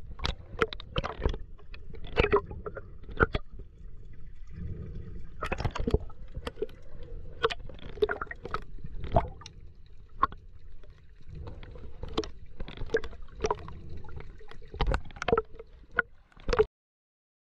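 Water heard through an underwater camera: muffled sloshing and gurgling over a low rumble, broken by many irregular sharp clicks and knocks. The sound cuts off suddenly near the end.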